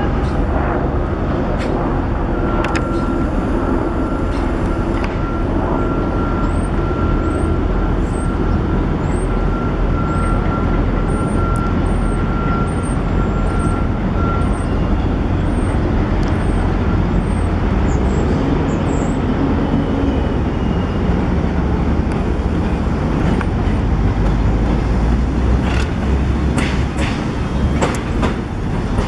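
Steady rumble of a New York City subway 1 train of R62A cars approaching on an elevated steel viaduct, mixed with city street traffic. A steady high whine holds for about twelve seconds early on. A few clicks come near the end as the cars draw alongside.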